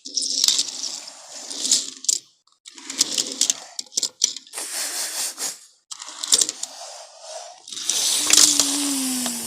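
Toy race cars pushed by hand along a surface: stop-start bursts of rolling and scraping with small clicks and clacks, each lasting about a second.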